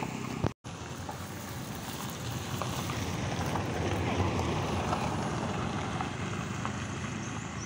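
Outdoor noise of wind on the microphone, with a motor scooter passing on the road, swelling a little midway. Sound cuts out completely for a moment about half a second in.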